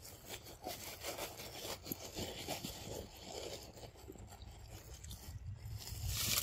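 A macaque monkey biting and chewing soft, ripe banana flesh: irregular rubbing and scraping chewing noises that get louder near the end.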